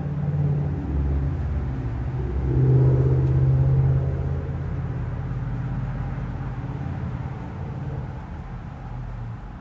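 52-inch NuTone Elegance ceiling fan with a Top Union K55-style motor running fast: a steady low hum and rumble of motor and moving air, swelling louder about three seconds in.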